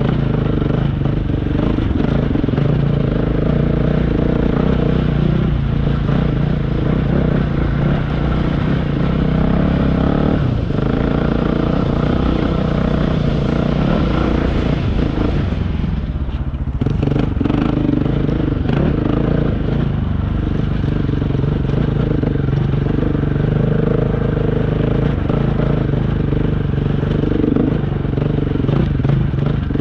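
Dual-sport motorcycle engine running under load on a rough uphill dirt track, its pitch rising and falling with the throttle, easing off briefly about sixteen seconds in before pulling again.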